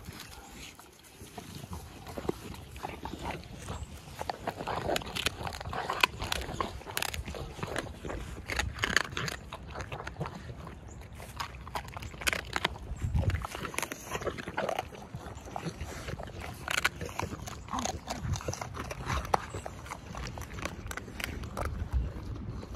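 Two bully-type dogs eating food scraps off the ground: steady, irregular chewing with many short clicks and smacks.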